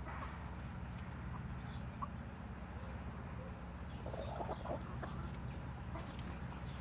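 Chickens clucking softly, with a quick run of clucks about four seconds in.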